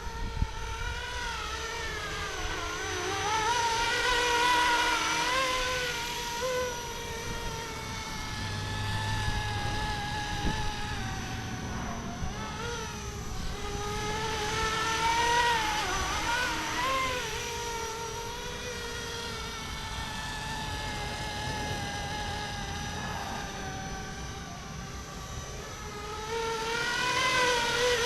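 FLISHRC Little Bird 450-size RC helicopter flying, its motor and rotor whine wavering up and down in pitch and swelling and fading in loudness as it manoeuvres. It is loudest near the end.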